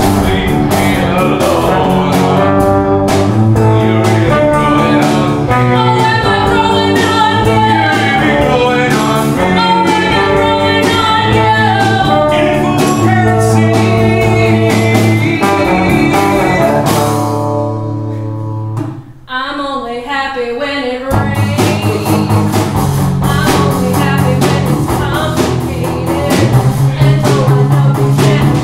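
Live rock band accompanying singers in a rock song mash-up. About 17 s in, the band holds a chord and drops out. A voice with vibrato sings briefly almost alone, and the full band comes back in about 21 s in.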